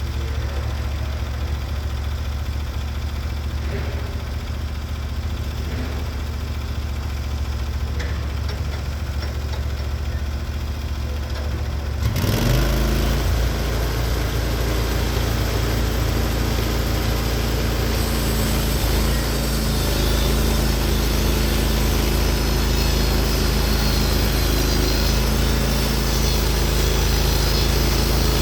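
Norwood HD36v2 band sawmill's gas engine idling steadily, then throttled up about twelve seconds in to drive the band blade at full speed. A few seconds later the sound turns brighter and harsher as the blade starts cutting a slab off the log.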